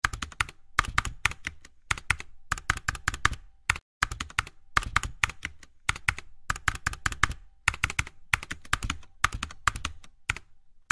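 Computer keyboard typing: quick runs of keystrokes in clusters with short pauses between them, and a brief break about four seconds in.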